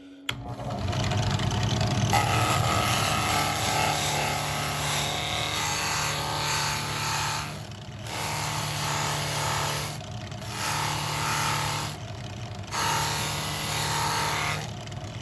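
Rikon drill press switched on with a click, its motor spinning up and running steadily while a 120-grit sanding mop rasps against a laser-engraved plywood disc, sanding off the laser residue around the engraved letters. In the second half the rasping breaks off briefly several times, leaving the motor's hum.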